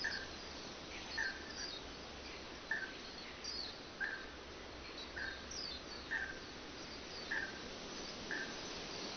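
Birds chirping: a short repeated chirp about once a second, with occasional higher falling notes. Behind them is a steady hiss of background noise.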